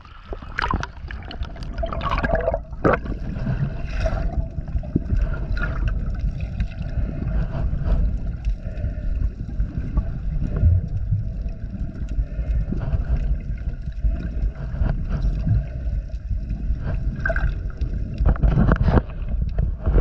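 Water sloshing and gurgling against a chest-mounted GoPro in its waterproof housing as a snorkeler swims, heard as a muffled underwater rumble. Sharper splashes come when the camera breaks the surface, loudest a couple of seconds in and again near the end.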